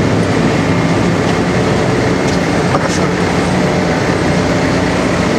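Loud, steady running of a heavy engine close by, with a low hum under a constant rush of noise and a few faint ticks about three seconds in: road-resurfacing machinery or heavy traffic at the roadworks.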